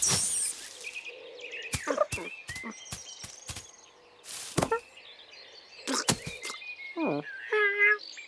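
Cartoon sound effects: a series of sharp knocks and thuds, mixed with a few short cartoon cat cries that fall in pitch and some faint high chirps.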